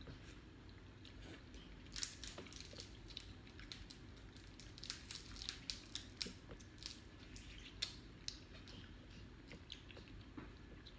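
Close-up eating sounds of people eating boiled seafood by hand: chewing with wet smacks and sharp clicks and crackles, thickest from about two to nine seconds in.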